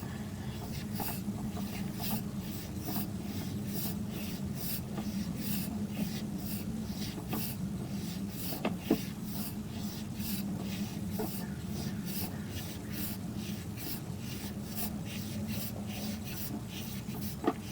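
Sewer inspection camera's push cable being pulled back out of the line, with a rhythmic rubbing about twice a second over a steady low hum.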